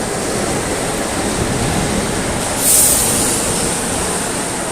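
Metro train running, a steady noise of the moving cars, with a short hiss a little over halfway through.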